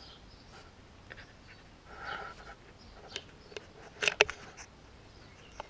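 A five-week-old Japanese Spitz puppy padding over wet concrete with scattered light taps, then a cluster of sharp knocks and rubbing about four seconds in as it pushes its body against the GoPro.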